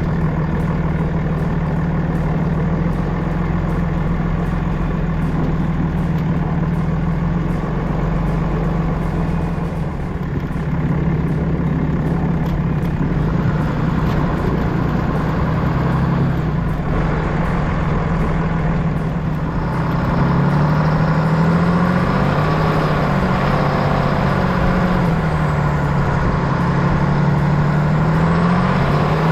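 An engine running steadily, with a low rumble and a strong hum; about two-thirds of the way in it gets a little louder and its pitch starts wavering up and down.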